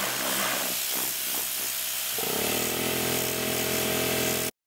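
Tornador air-cleaning gun hissing steadily as it blows air at 90 PSI. About two seconds in, the Bostitch pancake compressor's motor kicks on and runs with a steady hum under the hiss, the gun's heavy air use having drawn the tank down. The sound cuts off suddenly near the end.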